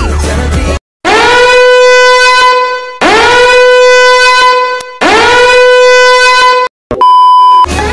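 A horn sound effect used as a 'simp alert': three long blasts, each swooping up and then holding one pitch, followed by a short high beep near the end. Music cuts off just before the first blast.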